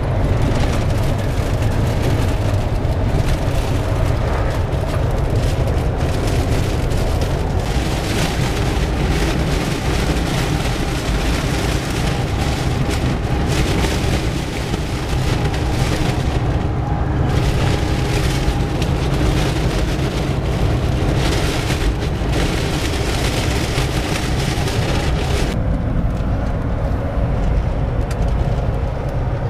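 Steady low rumble of road and wind noise inside a moving car's cabin, changing character abruptly twice.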